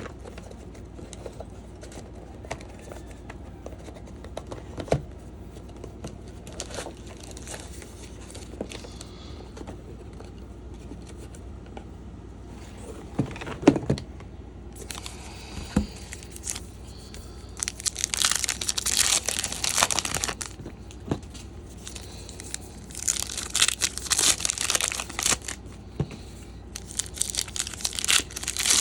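Trading card pack wrappers being torn open and crinkled in several bursts through the second half, after lighter clicks and handling of cards.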